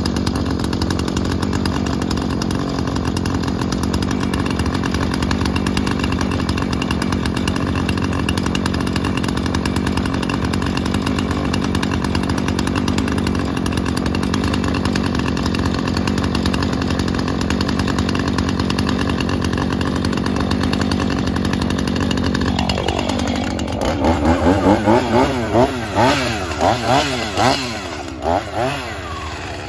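Husqvarna 445 two-stroke chainsaw idling steadily while it warms up. About three-quarters of the way through, its throttle is worked and the engine revs up and down over and over in quick blips.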